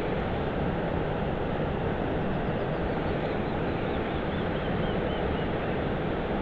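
Steady rush of river water flowing fast. Partway through, a small bird sings a run of about a dozen short notes that fall slowly in pitch.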